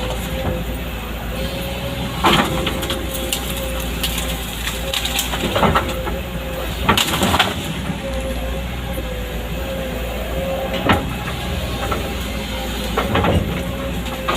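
Excavator running steadily, a low engine drone with a steady whine over it, and sharp metallic clanks from the working machine about five times.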